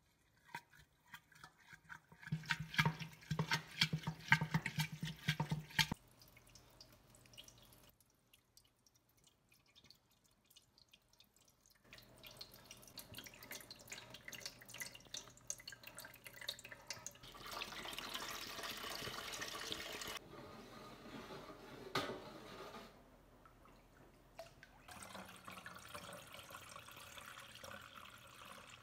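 A spoon stirring fermented rice mash for makgeolli in a glass jar, with wet scraping clicks. Then the milky rice wine trickling and dripping through a fine mesh sieve into a metal bowl, and being poured near the end.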